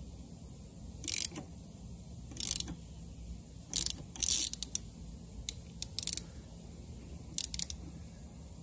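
Socket ratchet on the flywheel nut clicking in short bursts, roughly once a second, as the Kymco K-Pipe 125 engine is turned over by hand to bring the flywheel and cam gear timing marks into line for the valve adjustment.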